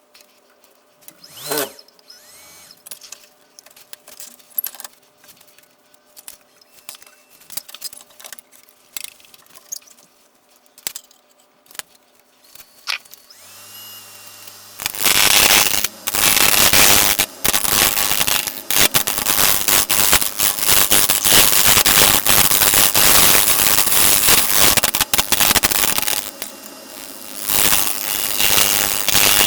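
Tool work on a maple bowl on a wood lathe. For about the first half there are only scattered light clicks and scrapes; then a loud, rough, grinding noise from the work on the wood runs for about ten seconds, stops, and starts again near the end.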